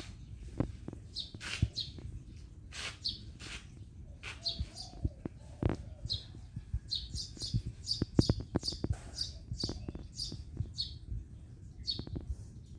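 Small birds chirping in many short, high calls, several a second, with scattered sharp clicks and a low rumble underneath.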